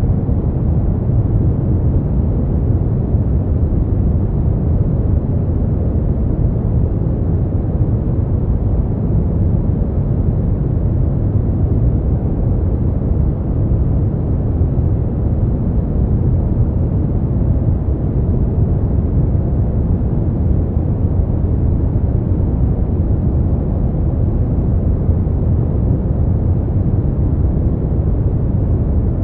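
Smoothed brown noise: a steady, even low rumbling hiss, strongest in the bass and with almost nothing in the highs, unchanging throughout.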